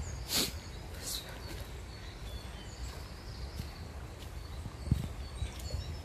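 Woodland ambience: scattered short bird chirps over a steady low rumble, with a couple of brief rustles near the start.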